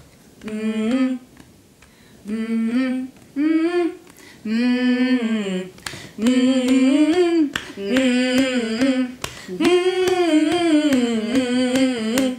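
Two women humming a rhythmic chest-thumping chant in short rising and falling phrases, their voices overlapping from about six seconds in, with sharp taps as they beat their chests.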